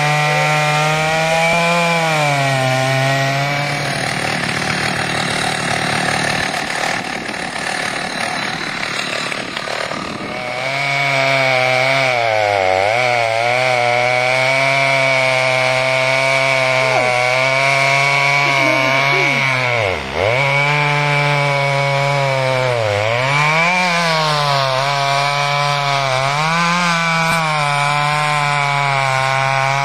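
Freshly rebuilt Stihl 045 AV Super two-stroke chainsaw running at high revs and sawing wood. Its tone turns rough for several seconds early on, and its pitch dips again and again as the cut loads it, dropping hardest about twenty seconds in.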